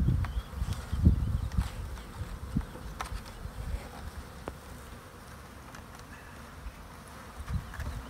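A package of honey bees buzzing as it is held upside down over an open hive. A few low thumps from handling the wooden package come in the first second or two, with scattered light clicks after.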